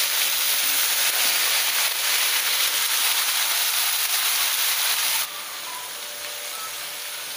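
Chopped vegetables sizzling loudly in hot oil in a kadai, just after being tipped in. The sizzle drops off suddenly about five seconds in as they are stirred.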